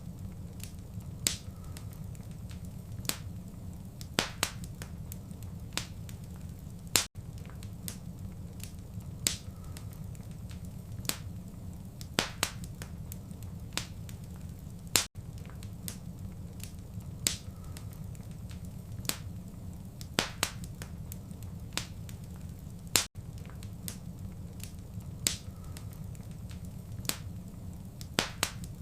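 Wood fire in a fireplace crackling, with sharp pops every second or two over a steady low rumble of flame. It is a short recording looped every eight seconds, with a brief dropout at each seam.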